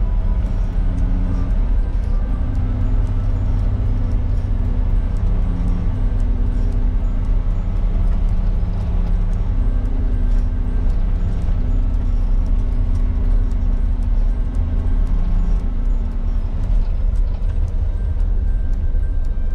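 Inside the cabin of a 1996 Suzuki Jimny JA22 on the move: its 660 cc three-cylinder turbo engine and the road noise make a steady, loud low drone.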